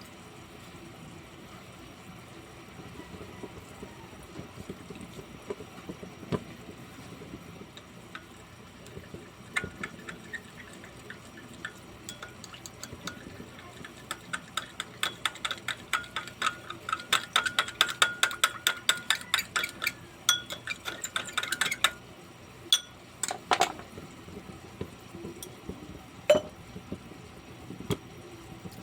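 A metal spoon stirring liquid in a glass, clinking rapidly against the sides for several seconds in the middle, then a few single clinks near the end.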